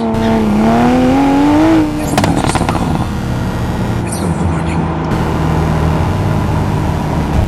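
Sports car engine accelerating hard: its pitch drops briefly at a gearchange near the start, then climbs again. After about two seconds it lets off with a few sharp cracks and settles into a steady lower drone.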